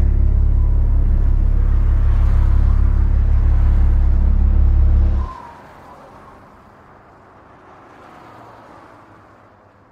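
A vehicle engine running with a loud, steady low rumble that cuts off abruptly about five seconds in, leaving only faint background ambience.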